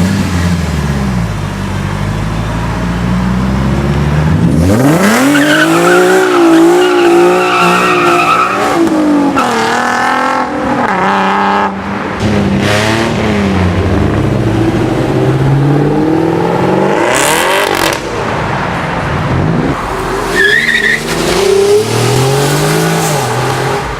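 Car engines revving and accelerating hard. One engine's pitch shoots up about five seconds in, with a rush of tyre squeal and skidding noise over the next several seconds. More revving and passing engines follow, and there is a short high tyre chirp near the end.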